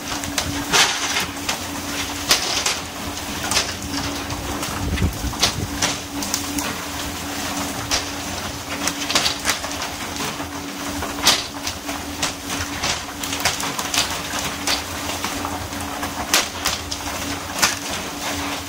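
Pole-and-line fishing boat at work: the steady hiss of water spray over the sea and a constant hum from the boat's machinery, with frequent sharp slaps and knocks as fish are swung aboard and hit the deck.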